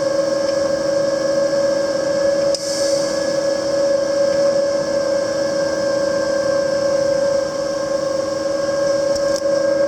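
Panasonic YD-350GR3 semi-automatic welder running with a steady hum made of two held tones over a hiss, broken by a brief dip about two and a half seconds in and again near the end.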